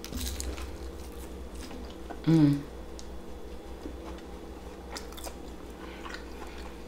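Biting into and chewing beer-battered deep-fried seafood, with faint crunching and wet mouth sounds. A brief closed-mouth hum of the voice comes a little over two seconds in.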